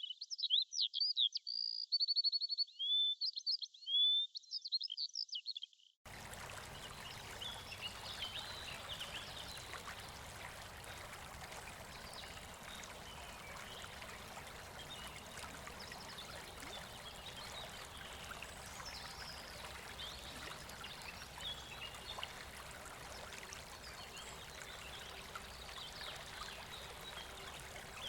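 Birdsong of quick chirps and a short trill for about the first six seconds, then a sudden switch to the steady rush of river water with faint bird chirps over it.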